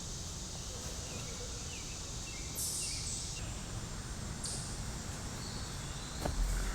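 Outdoor ambience: wind rumbling on the microphone, with faint bird chirps and two short bursts of high hiss.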